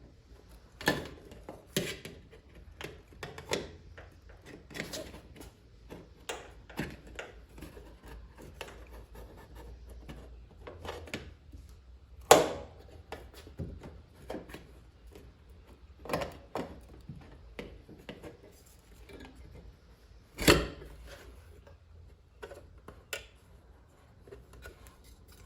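Irregular clicks, knocks and rubbing from fitting a side-mirror bracket and its plastic sleeve by hand, with two louder knocks about twelve and twenty seconds in.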